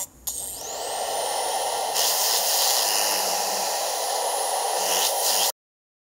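A loud rush of static-like hiss that swells over the first two seconds, with a faint rising whistle under it about half a second in. It then holds steady and cuts off abruptly about five and a half seconds in.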